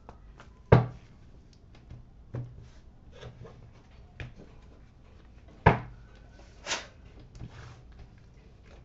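Tarot cards being handled on a cloth-covered table: two sharp knocks and several fainter taps, with short rustles of the deck being shuffled and the cards slid out into a spread.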